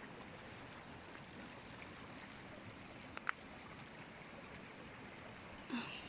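Steady rushing of a stream. One sharp click comes a little past halfway, and a short soft sound comes near the end.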